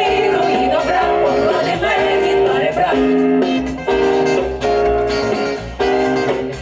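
Live jazz band with a horn section and several singers performing a song in short held phrases over a steady beat.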